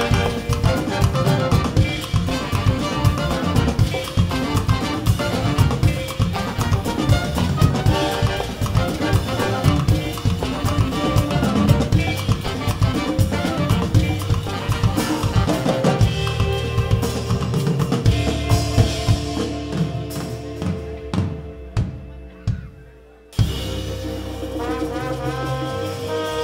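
Live band with a brass section of trumpet, tenor saxophone and trombone playing over drum kit, congas, electric guitars, bass and keyboards. Near the end the music thins and almost stops, then comes back with the horns holding long notes.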